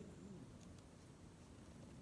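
Near silence, with a few faint ticks.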